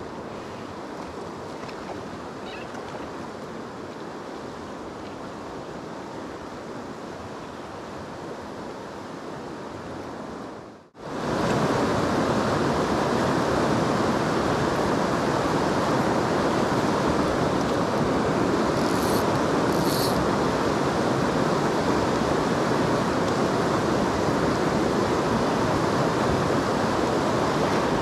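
Steady rushing of fast river rapids over rocks. About eleven seconds in the sound breaks off for an instant and comes back much louder.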